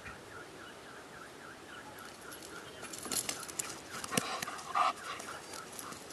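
Belgian Malinois close by giving a short whine near the end, amid clicks and knocks as it scrambles over the grass on its long line.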